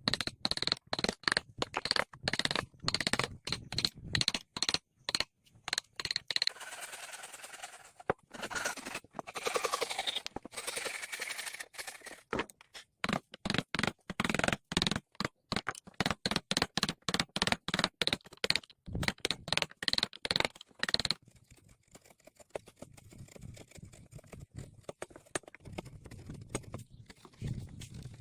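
Wood being worked: a rapid, irregular run of knocks and clicks with stretches of scraping. The knocking thins out and grows quieter about three quarters of the way through.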